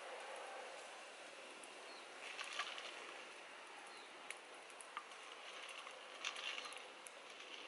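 Faint scattered clicks and clinks over a soft steady hiss, from a spoon stirring clams in a metal pot set over a small wood fire.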